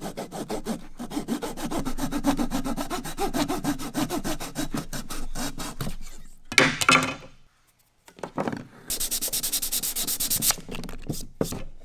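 Flexible pull saw cutting a wooden dowel flush with a pine board in fast, short, even strokes, with a louder rasp just past halfway as the cut finishes. After a brief silence, sandpaper is rubbed back and forth by hand over the cut.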